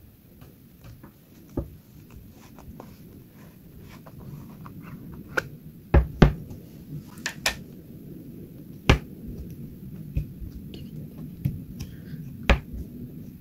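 Fingers pressing, poking and folding a thick white slime in a plastic tub: a soft squishing rustle with scattered sharp clicks and pops of trapped air, a few of them much louder than the rest.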